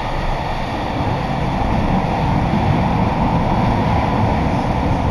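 Running noise of a Yokohama Green Line linear-motor subway train in motion, heard from inside the passenger car: a steady, low rumble that grows a little louder about two seconds in.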